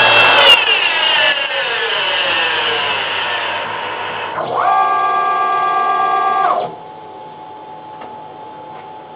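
The home-built high-speed spindle head of a CNC-converted mini milling machine is switched off and winds down, its whine falling steadily in pitch. A separate steady machine whine follows for about two seconds, then cuts off suddenly, leaving a faint steady hum.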